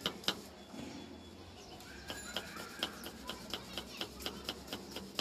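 Knife chopping a cucumber on a wooden cutting board in quick, even strokes, about three to four a second. The chopping pauses briefly near the start and resumes about two seconds in.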